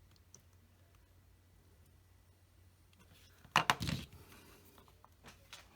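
Faint steady room hum, then about three and a half seconds in a brief cluster of sharp clicks and knocks as small plastic model-kit parts and tools are handled on the workbench, with a few lighter ticks near the end.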